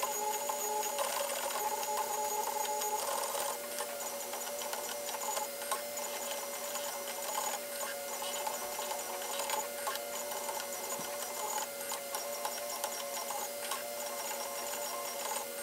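M3D Micro desktop 3D printer printing: its stepper motors whine in steady tones that change pitch and break off every few seconds as the print head moves.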